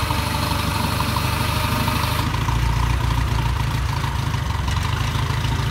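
Old farm tractor's engine running steadily at a low, even idle while it works its front-end loader, with a hiss over the first two seconds.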